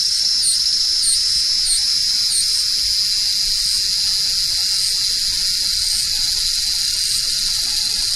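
Cicada calling: a loud, high-pitched continuous buzz that pulses with brief dips about every 0.6 seconds for the first couple of seconds, then holds steady.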